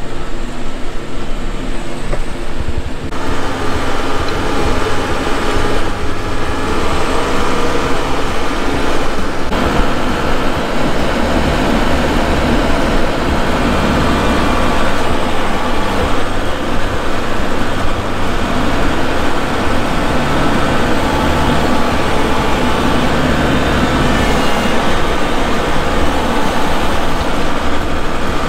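Kubota MX5200 tractor's diesel engine running as the tractor drives, heard from the operator's seat; it comes in louder about three seconds in and then runs steadily.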